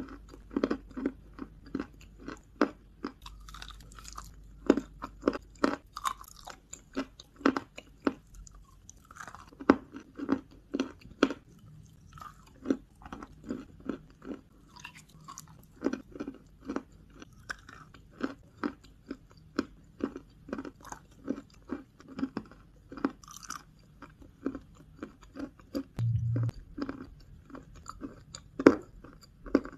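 Close-miked chewing of wet white clay paste with crunchy lumps: a steady run of crisp crunches and wet mouth sounds, about two to three a second, with a dull knock near the end.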